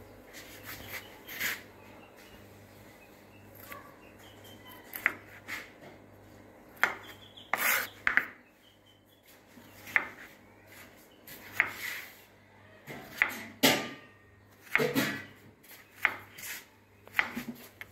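Large steel kitchen knife slicing fresh strawberries on a wooden cutting board: irregular short taps of the blade meeting the board, coming closer together in the last few seconds.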